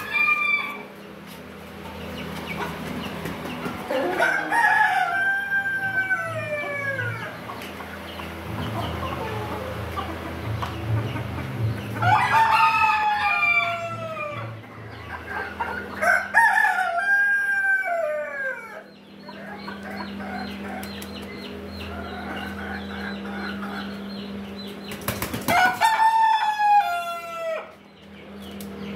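A rooster crowing four times, each crow about two seconds long and dropping in pitch toward its end.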